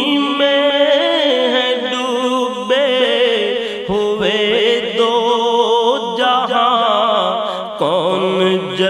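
A man singing an Urdu naat in long, wavering melismatic phrases.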